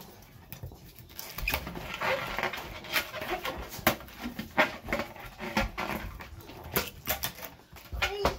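A latex balloon being stretched and worked over the plastic mouth of a balloon-stuffing machine: a rapid, irregular run of taps, clicks and rubbing, busier from about a second in.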